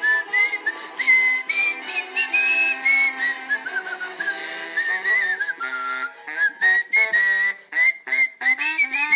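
A man whistling a tune by mouth in quick, separate notes that hop up and down, with quieter backing music under it.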